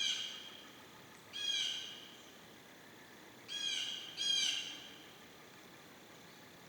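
Blue jay squawking: four harsh calls, one right at the start, one about a second and a half in, and two close together a little past the middle.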